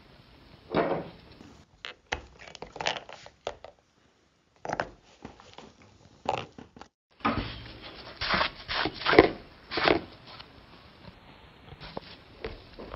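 Irregular rubbing and handling noises as a soapy sponge is worked over an inflatable paddleboard's valve and a finger handles the plastic valve cap, in a soap-water leak check of the valve. There is a brief near-silent gap about four seconds in.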